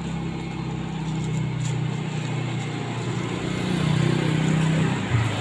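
A motor vehicle engine running at a steady low pitch nearby. It grows louder from about three and a half seconds in, then drops in pitch near the end.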